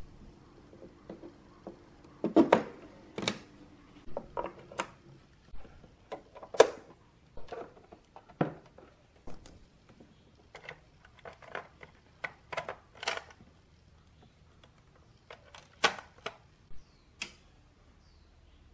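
A string of irregular clicks and knocks from plugging in power connectors: a blue twist-lock power connector pushed into the moving-head light's power inlet, then a mains plug into a power strip. The sharpest clicks come about two and a half and six and a half seconds in.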